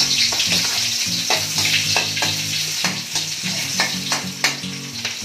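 Sliced onion dropped into hot cooking oil in a steel wok, starting to sizzle all at once, with a metal spatula scraping and clicking against the wok as the onion is stirred.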